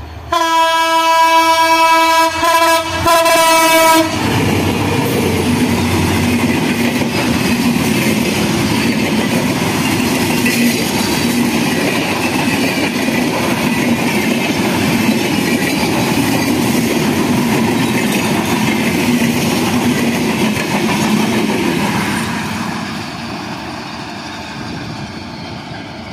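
A Bangladesh Railway diesel locomotive sounds its horn, one loud blast of about four seconds broken twice briefly, as it approaches. Then the express train's coaches pass close by, wheels rumbling and clattering over the rail joints, fading away a few seconds before the end.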